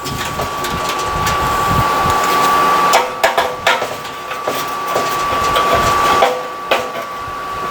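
Screws being backed out of the dryer drum where it mounts to the drive shaft: mechanical scraping and whirring for about six seconds, with a few sharp metallic clicks about three seconds in and again near the end.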